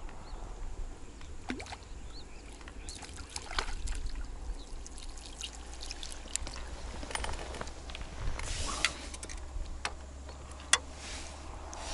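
Light splashing and dripping water as a hooked roach is played at the surface and lifted out on a float rod, with scattered small clicks.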